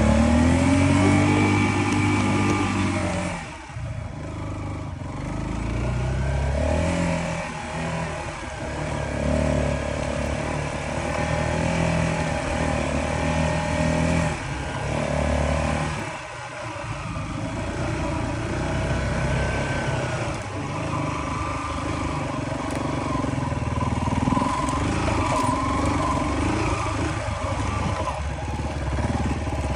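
Kawasaki KLR250 single-cylinder four-stroke engine running under a constantly changing throttle while riding a dirt trail. The pitch rises and falls, revving up near the start and easing off briefly around four and sixteen seconds in.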